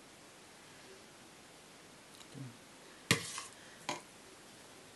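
Metal ladle knocking against a stainless steel pot: one sharp clank about three seconds in, then a lighter knock just under a second later.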